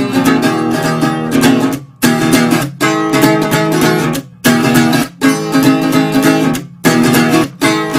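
Instrumental stretch of a folk-punk song: an acoustic guitar strummed hard, the chords breaking off sharply for a moment about every second and starting again.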